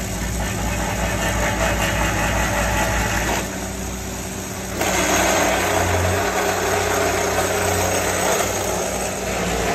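A railroad track tamper running steadily, its engine and workhead making a busy mechanical noise as the tamping tines vibrate down into the ballast and squeeze rock under the ties. The noise drops briefly about three and a half seconds in and comes back louder about five seconds in.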